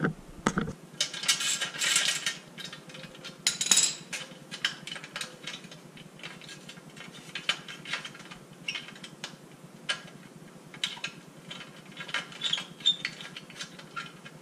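Hand ratchet with a T25 Torx bit clicking as screws are backed out of the motorcycle's passenger-peg area, with metal tools and small parts clinking. There are louder clatters in the first few seconds.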